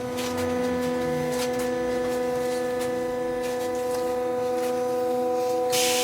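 Steady electrical whine of a trolleybus's electrical equipment, heard from inside the cabin: several fixed tones held at a constant pitch, with light clicks and a hiss that rises near the end.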